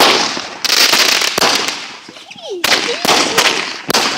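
Consumer fireworks going off in a rapid, irregular series of about six sharp bangs, each trailing off in a hissing crackle.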